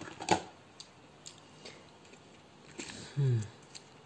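Small hard objects clicking and knocking as a hand rummages through a tin of odds and ends, with one sharp click just after the start. A short hummed vocal sound from a man about three seconds in is the loudest thing.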